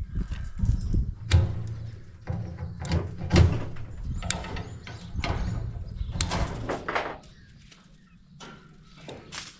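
Wire netting and kennel-run framing being handled: irregular knocks, clanks and rattles of mesh against the frame, busy for about seven seconds, then quieter, with a few knocks near the end.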